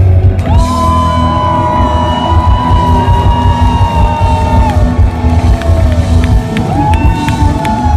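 Live rock band playing loud, with a steady bass and drum beat under a long held high note that bends slightly, followed by a second held note near the end.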